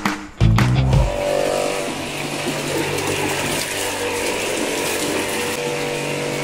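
Music for the first second, then a steady, dense, rapid mechanical clicking that runs on for several seconds.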